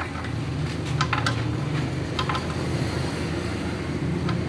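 A few light clicks and knocks over a steady low hum.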